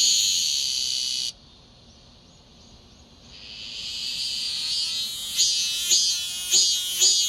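Cicada singing: a loud, steady high buzz cuts off suddenly about a second in. After a short pause the song swells back up and breaks into rhythmic pulsing phrases, about one a second.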